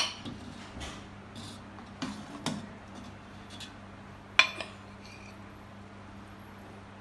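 Metal ladle knocking and clinking against a metal cooking pot and a ceramic plate while stew is dished out: a handful of separate clinks, the loudest about four and a half seconds in. A faint steady low hum runs underneath.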